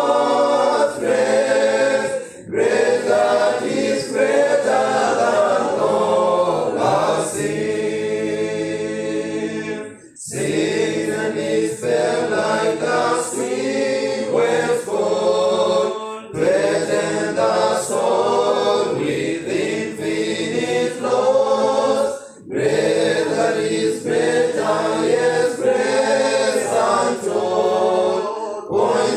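Choir singing a hymn a cappella, line by line with short breaks between phrases.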